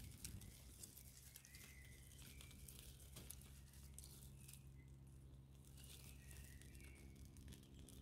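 Faint crackling and rustling of dry twigs being laid onto a small campfire, a few light crackles scattered through. A low steady hum sits underneath.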